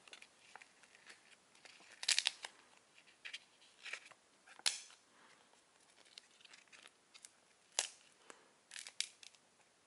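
Pages of a paper sticker book being flipped and handled: a series of short rustles and flicks, spaced irregularly.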